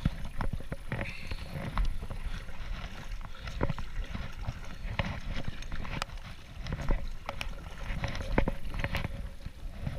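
Kayak paddle strokes on a lake: the blades dipping and splashing, with irregular sharp clicks and knocks from the paddle and hull over a steady low rumble of water and wind.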